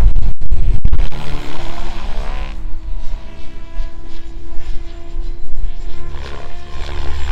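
Electric SAB Kraken 580 RC helicopter, run on 12S batteries with 603 mm rotor blades, flying aerobatics overhead: loud rotor-blade and motor noise. It eases about two and a half seconds in to a steadier hum holding one pitch, then grows louder again near the end.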